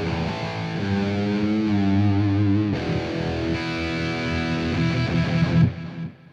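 Distorted electric guitar, a Suhr Strat-style guitar through a Bogner Ecstasy 20th amp with EL34 valves, playing a held lead note with wide vibrato. Just before halfway a new note rings out and is held steady, then is muted near the end, leaving a faint fading ring.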